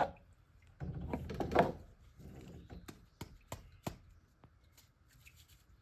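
Sharp plastic clicks and knocks, five or six in a row over about a second and a half, as 3D-printed tower parts and net cups are handled and fitted.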